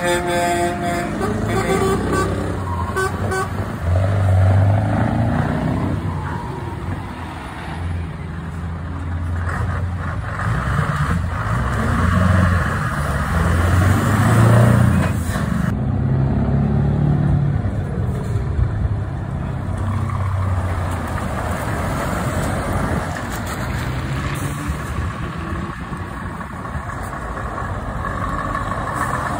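Diesel engines of Scania tractor units running as the lorries pull away and drive past one after another, the rumble swelling with each truck. A horn toots briefly at the start.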